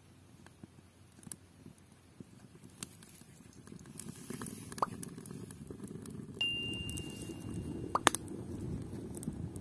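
Dry twigs catching fire in a small sheet-metal wood stove: scattered sharp crackles and pops, with the low rush of the flames growing louder through the second half. A thin steady whistle lasts about a second and a half and ends in a loud snap.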